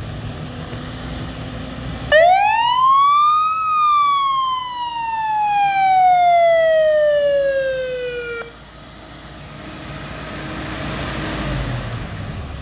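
Fire truck siren sounding a single wail: about two seconds in it rises quickly in pitch, then falls slowly over about five seconds and cuts off suddenly. Under it, the truck's 7.0-liter gasoline V8 runs as the truck drives up, growing louder near the end.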